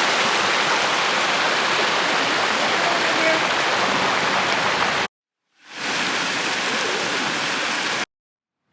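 Steady rushing roar of a waterfall, heard in two clips that each fade in and then cut off abruptly.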